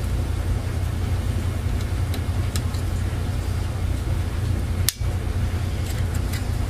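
Small side cutters snipping the speaker's lead wires, a few short sharp clicks over a steady low hum, with one sharper click about five seconds in.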